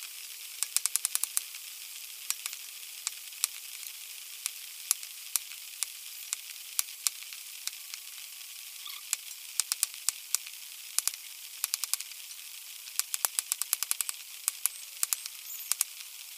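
A heavy machete blade chopping raw chicken into pieces on a wooden board: a string of sharp knocks, some single and some in quick runs of several strokes, over a steady hiss.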